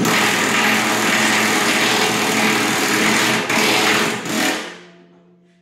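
Cordless drill running hard against a steel frame for about three and a half seconds, stopping briefly, running again for about a second, then winding down.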